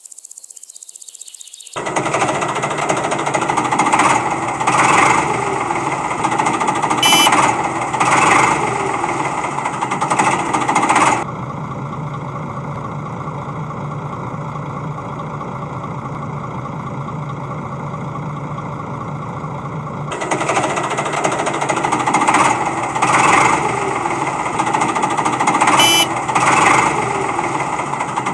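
A machine running with a fast, dense rattle that starts abruptly about two seconds in. It swells in repeated loud surges, runs steadily for several seconds in the middle, then surges again.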